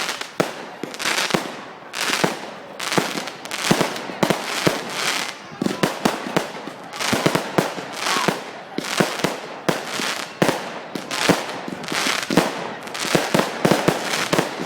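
Fireworks going off in a dense barrage: a rapid, irregular run of sharp bangs and crackles, several a second.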